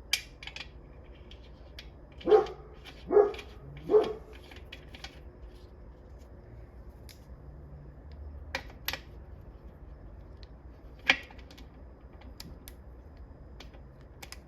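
A dog barks three times in quick succession, followed by a few light clicks.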